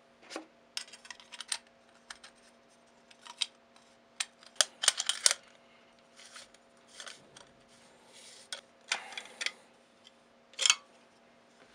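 Irregular clicks, clinks and short scrapes of metal shotgun parts being handled: an ATI Talon forend slid along a Remington 870's magazine tube, and its forend nut picked up and fitted to the tube's end.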